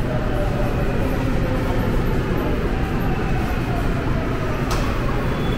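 Subway train running with a steady rumble and a faint whine that falls slowly in pitch. One sharp click comes near the end, and just after it a steady high tone begins.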